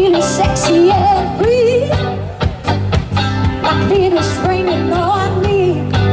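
Live band playing: drum kit beat, bass guitar and keys, with a melody line sliding up and down in pitch over them.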